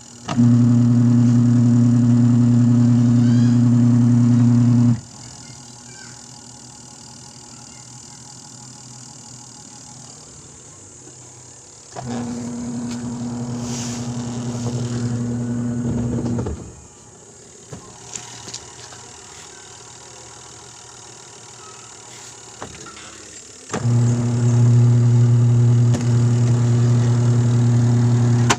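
Washing machine spin-dryer motor switched on three times. Each time it gives a loud, steady electrical hum for about four to five seconds, then cuts off. The motor hums but turns weakly even with a new capacitor, which the repairman takes as a sign that the motor itself is failing.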